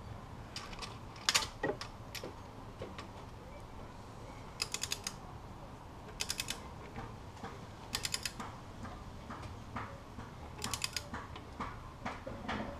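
Ratchet of a torque wrench clicking in short bursts of rapid clicks, about five times, as the rocker arm bolts are tightened down.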